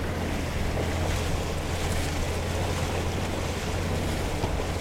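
Steady in-cabin rumble of a Toyota 4x4 driving slowly over a rough, rocky gravel track: a low engine and drivetrain drone mixed with the tyres rolling over loose stones.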